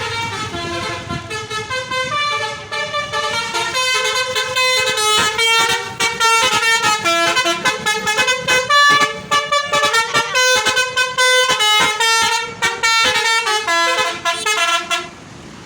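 Basuri multi-tone bus horn of the pianika type playing a quick tune of short stepped notes, cutting off about fifteen seconds in.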